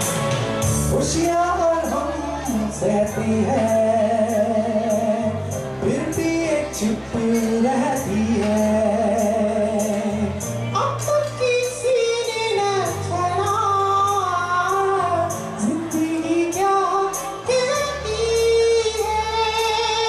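A man singing a Hindi song into a microphone over a recorded backing track with a steady beat.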